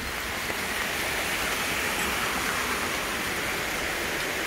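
Steady rushing of a mountain valley stream, mixed with rain falling heavily on the water and rocks; it grows slightly louder about half a second in.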